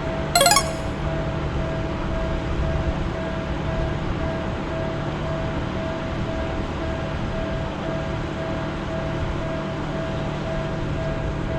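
Japanese railroad crossing warning bell ringing in an even, repeating rhythm over a steady low rumble of train noise. A brief, sharp, high-pitched blip about half a second in is the loudest moment.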